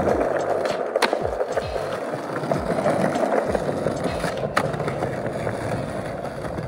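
Skateboard wheels rolling steadily over stone paving tiles, with a sharp clack of the board about a second in and another about four and a half seconds in. Background music plays underneath.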